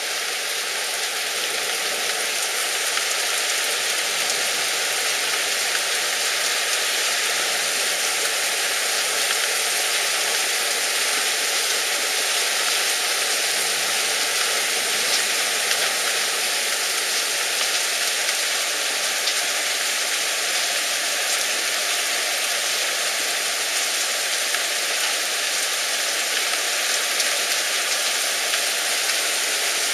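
Heavy rain pouring down in a steady, even hiss with no letup.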